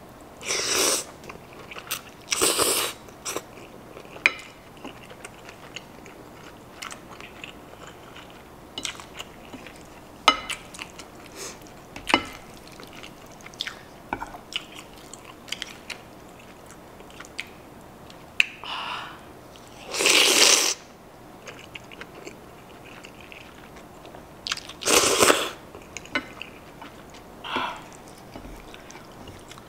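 Close-miked eating of noodles: soft chewing with several louder, noisy mouthfuls of pasta, and occasional sharp clicks of a wooden fork and spoon against the plate.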